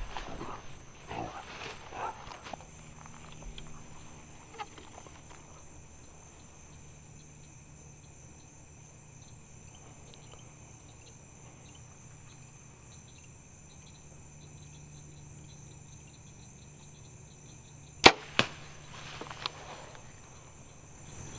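A compound bow shot: one sharp, loud crack about three-quarters of the way in, followed by a couple of lighter knocks. Before it, only faint steady insect chirping.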